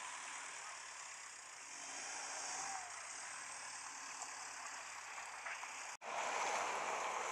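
Piper Arrow IV light aircraft's single piston engine running at low power as it touches down and rolls out, faint and partly lost in a steady hiss of wind and background noise. The sound drops out briefly about six seconds in and comes back a little louder.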